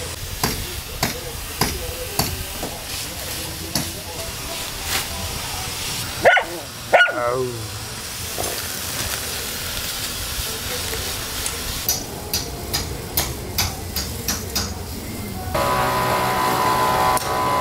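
Masking tape being peeled off a painted wooden hull, with many short crackling rips, and a dog barking twice about six seconds in. A steady pitched hum comes in near the end.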